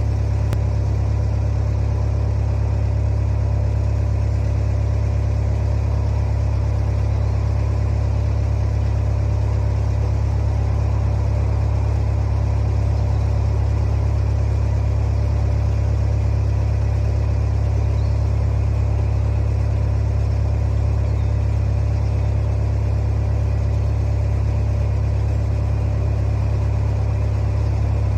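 Narrowboat's inboard diesel engine running steadily while cruising: an unbroken, even low drone.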